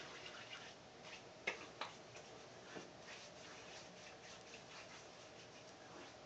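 Near silence with faint taps and clicks of hands patting bay rum aftershave onto the face and neck; the two clearest clicks come close together about a second and a half in.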